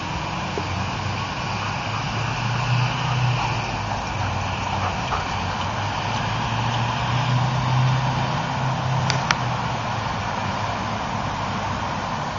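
Road traffic: a steady low engine rumble with tyre hiss that swells twice as vehicles pass, with two faint clicks about nine seconds in.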